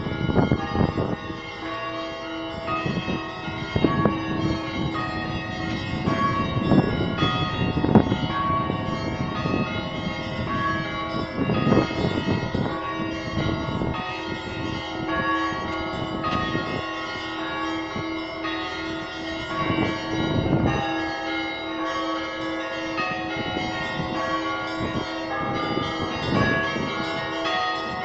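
Church bells ringing a perezvon, several bells struck in turn. Their many tones overlap and ring on, with fresh strikes every few seconds.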